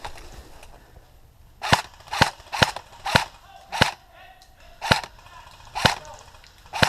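Airsoft rifle firing eight single shots at an uneven pace, each a sharp crack, starting a couple of seconds in.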